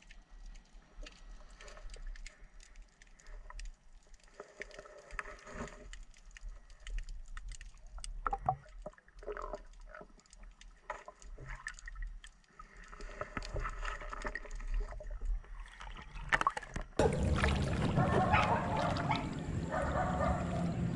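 Water sloshing and splashing as a person wades through shallow river water pushing a scoop net, turning suddenly louder about three-quarters of the way through; before that, only faint scattered splashes and ticks.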